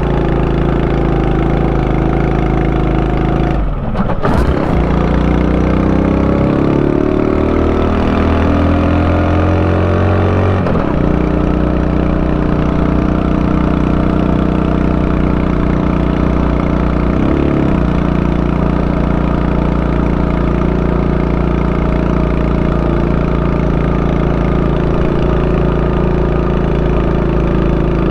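Honda Super Cub 90's small air-cooled four-stroke single-cylinder engine running. About four seconds in there is a brief break; then its pitch climbs for about six seconds, drops suddenly, and settles into a steady note.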